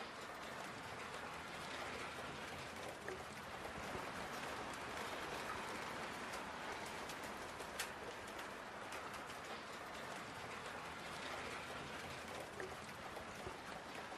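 Steady rain-like hiss of water noise with a few faint ticks, one sharper tick about eight seconds in.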